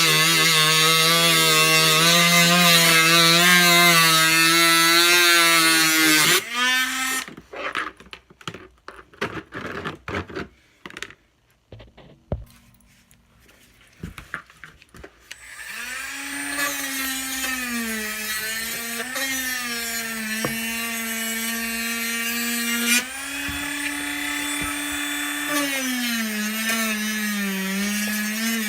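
Handheld electric power tool motor whining at speed, stopping after about six seconds. Then comes a stretch of clicks and knocks from handling. The motor runs again from about halfway, its pitch dipping and rising as it works.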